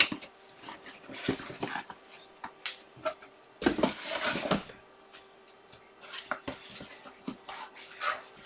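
Cardboard boxes being handled and set down on a table: scattered taps and clicks, with a longer rustle of cardboard about four seconds in, over a faint steady hum.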